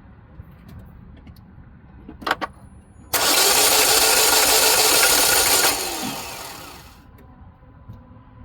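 Starter motor cranking a 2011 Chevrolet Equinox engine for about three seconds at a steady pitch, the engine not catching, then winding down. Two sharp clicks come about a second before. The mechanic takes this free spinning for an engine that has lost its timing, probably a broken timing chain, leaving no compression.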